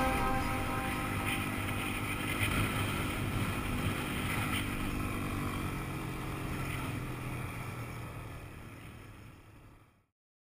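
Quad bike engine running with wind noise on the microphone, fading out gradually to silence.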